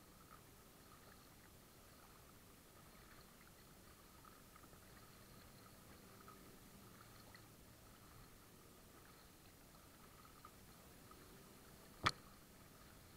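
Faint water lapping and splashing against a paddled kayak on a choppy lake. A single sharp click comes near the end.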